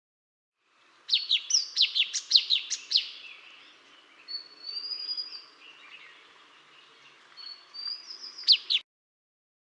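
A wild bird singing: a quick series of about eight sharp down-slurred notes, then a drawn-out whistle, and another rising whistle ending in two sharp notes. The sound starts suddenly about a second in and cuts off near the end.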